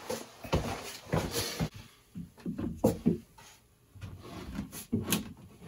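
PVC pipe and fittings being handled and fitted: a run of irregular knocks and clicks with rubbing between them.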